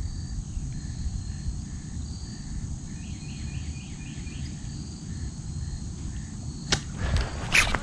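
Crickets chirping in a steady pulsing rhythm over a low outdoor rumble. Near the end there is a sharp knock and a short rising swish.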